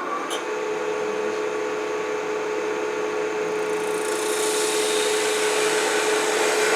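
A lathe spinning a plexiglass disc while an ultra-thin parting tool cuts into it: a steady hum under a scraping hiss that grows louder and brighter from about four seconds in.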